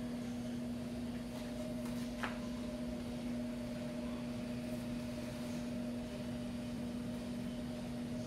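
A steady electric hum from a small motor, with one brief click about two seconds in.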